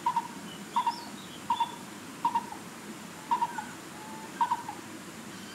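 A bird calling over and over: a short, low double note repeated about every second, with faint higher chirps from other birds.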